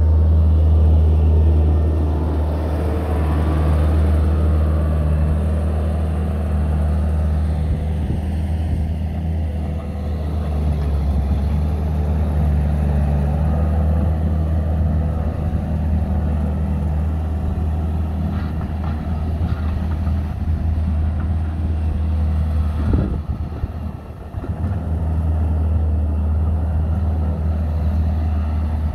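Bobcat S630 skid-steer loader's diesel engine running steadily under load while the machine pushes and levels soil with its bucket. The loudness briefly dips about three-quarters of the way through.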